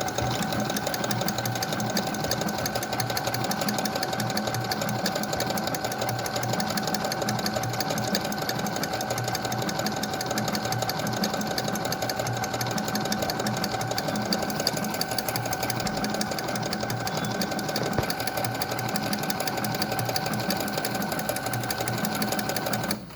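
Brother FS101 computerized sewing machine running steadily while sewing a decorative embroidery stitch: a steady motor whine over rapid, even needle strokes. It stops abruptly near the end.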